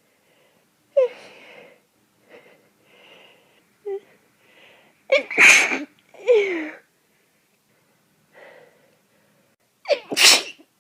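A person with a head cold sneezing: a few short breathy catches of breath build up to a loud sneeze about five seconds in, followed by a short falling vocal sound, then a second loud sneeze near the end.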